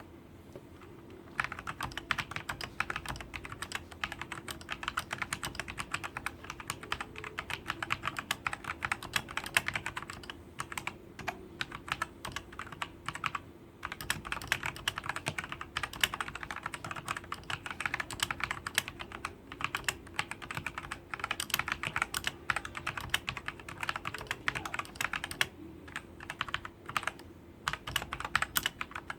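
Typing on a Royal Kludge RK Sink104Pro mechanical keyboard with Cherry MX Red switches: a rapid, continuous clatter of keystrokes that starts about a second and a half in, with a few brief pauses.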